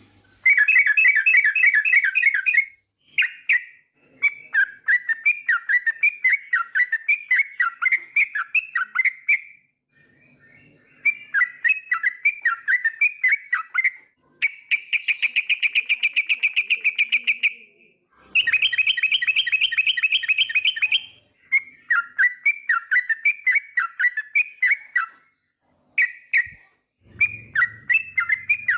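Yellow-vented bulbul (trucukan) singing: loud runs of rapid, bubbling chirps repeated in phrases of a few seconds with brief pauses, two of them delivered as fast, even trills.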